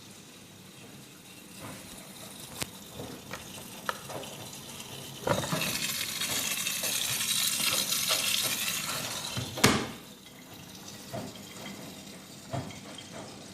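Washing machine taking in water: about five seconds in a rush of water starts, runs for about four seconds and stops with a sharp click. Scattered light clicks come before and after it.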